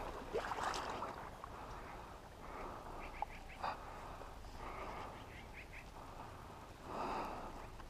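Faint duck quacks in short rapid series, a few seconds in and again past the middle, with a brief swell of noise about seven seconds in.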